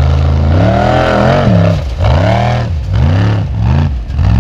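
Formula Offroad buggy engine revving hard on a steep sand and gravel climb. Its pitch swings up and down about four times as the throttle is worked on and off, and it settles to a steady high note near the end.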